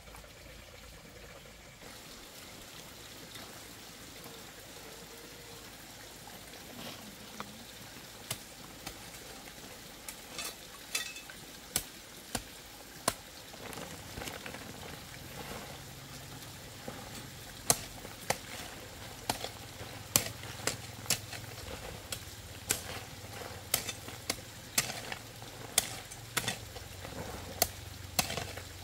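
Food frying in a pan with a steady sizzle. From about ten seconds in come sharp knocks of a utensil against the pan, about once a second in the second half.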